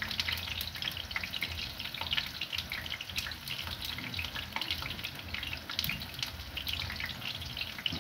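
Food sizzling as it fries: a steady hiss with dense crackling, over a low hum.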